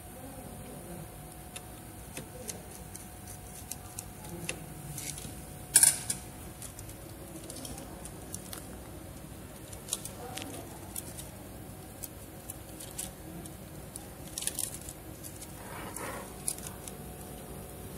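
Scattered small clicks and light rattling of plastic and metal parts being handled inside a printer's print-head carriage as the head, ink tubes and ribbon cables are fitted by hand, with one sharp click about six seconds in.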